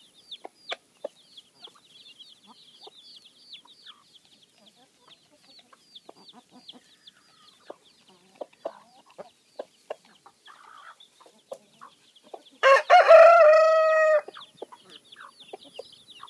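Chicks peeping continually in short, high, falling notes, with hens giving short clucks now and then. About 13 seconds in, a rooster crows once, loudly, for about a second and a half.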